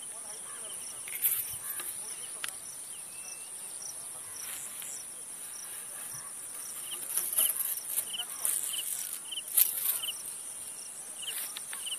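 Field insects calling: a steady high-pitched trill, with shorter chirps repeating two or three times a second. A few brief rustles stand out, loudest about a second in and near ten seconds in.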